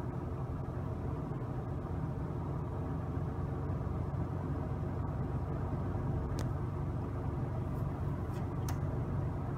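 Dayton Model 4C418 20-inch box fan running steadily on its low speed: an even rush of air from the blades over a low motor hum.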